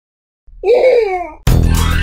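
A short, child-like cartoon voice sound effect with a pitch that bends down and back up, lasting about a second after a brief silence, then children's background music starting abruptly near the end.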